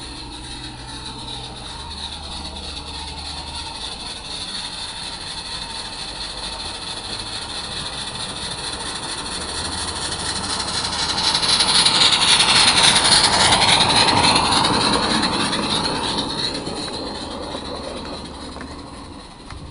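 Small live-steam garden-railway locomotive on 32 mm gauge track, approaching and passing close by with a hissing, rushing exhaust. The sound builds steadily, is loudest from about eleven to fifteen seconds in as the engine goes past, then fades as it runs away.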